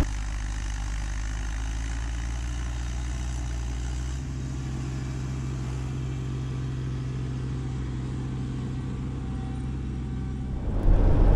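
A vehicle engine running steadily as a low hum, its tone shifting slightly about four seconds in.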